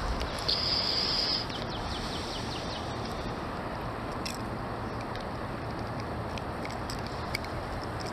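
Steady outdoor background rush, with a high, steady whistle about half a second in and a quick run of short, falling high chirps just after it.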